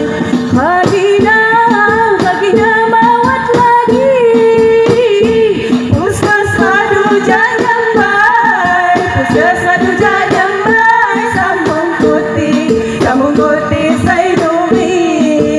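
Lampung traditional music: frame drums and a small gong beating a steady rhythm under a singing voice, with sustained ringing tones.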